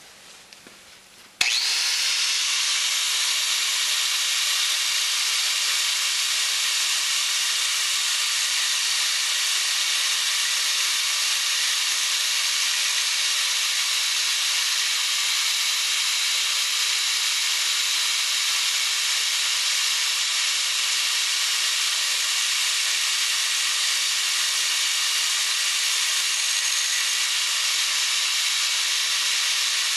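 Electric angle grinder starting abruptly about a second and a half in, then running steadily while ground against the metal of an engine block, throwing sparks.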